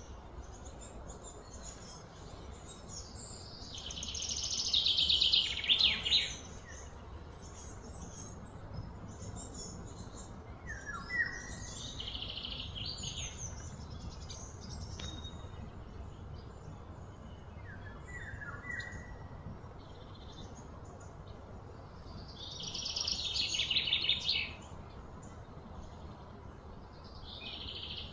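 Birds calling outdoors: short falling chirps repeat every several seconds, and three times a louder, high, rapidly pulsed trill builds for a couple of seconds and then stops abruptly, over a steady low background hum.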